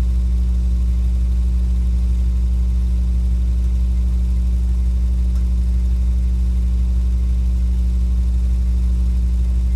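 Super 8 film projector running: a steady low motor hum, unchanging throughout.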